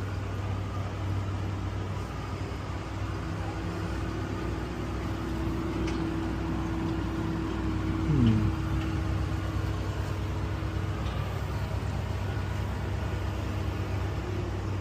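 Steady low hum of urban background noise, with a short falling tone about eight seconds in.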